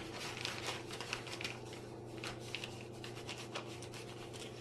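Faint, irregular rustling and light scraping as powdered sugar is scooped out of its bag with a measuring cup, the bag crinkling as it is handled.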